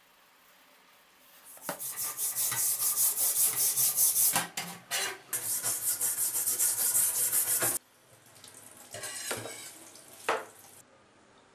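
Steel drawknife blade scrubbed by hand with cleaning powder in a stainless-steel sink: quick, even rubbing strokes, about three or four a second, that stop abruptly about eight seconds in. Quieter running water follows, with one sharp knock near the end.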